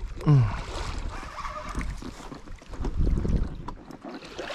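Water splashing and sloshing around a boat, with wind buffeting the microphone and a low rumble building briefly past the middle. Near the start there is a short, loud exclamation whose pitch falls.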